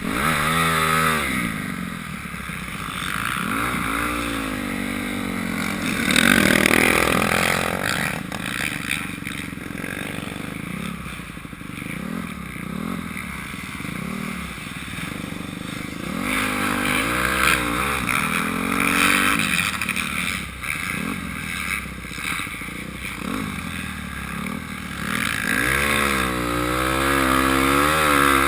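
Dirt bike engine revving up and dropping back over and over as the throttle is opened and closed through the turns, with wind rushing over a helmet-mounted microphone.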